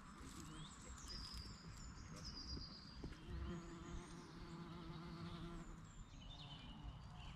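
Ambient birdsong, with scattered high chirps throughout. A flying insect buzzes close by with a steady hum for a couple of seconds about halfway through.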